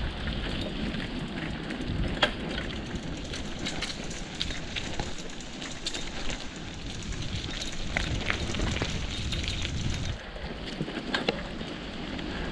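Dry fallen leaves and twigs crackling and rustling as something moves over them on a forest trail, with many sharp irregular cracks over a steady low rushing noise.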